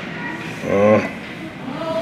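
A short, loud shout from one person, rising in pitch just under a second in, over a steady murmur of talk and rink noise.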